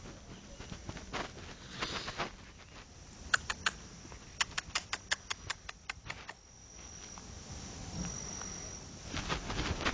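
Rabbits eating: a quick run of crisp crunching clicks, about five a second, through the middle. A high, thin, steady cricket-like trill sounds faintly in the later part.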